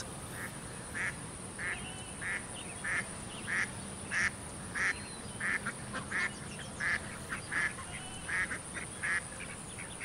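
Duck quacking: a long series of short, even quacks, about one to two a second.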